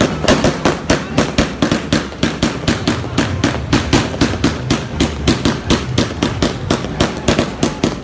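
A string of firecrackers going off in rapid, even pops, about six a second.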